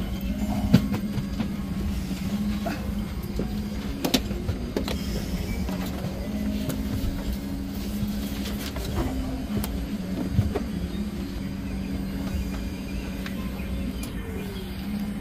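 Steady low hum in the cabin of a parked Boeing 717, with a few sharp clicks and knocks as a tray table is pulled out of the seat's armrest and unfolded.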